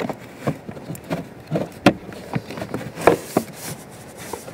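Heater blower motor and its plastic fan cage knocking and scraping against the blower housing as it is pushed and worked up into place by hand: a string of irregular clicks and knocks, the sharpest about two and three seconds in.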